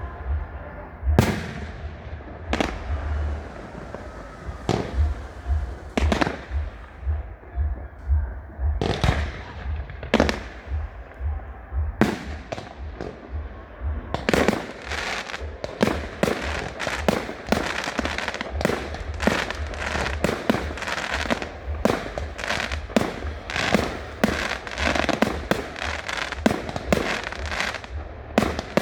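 Fireworks display: single shells bursting with sharp bangs a second or two apart, then, from about halfway, a rapid unbroken barrage of bangs and crackles.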